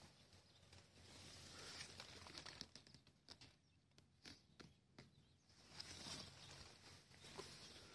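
Near silence: faint outdoor background hiss with a few soft clicks and rustles about three to five seconds in.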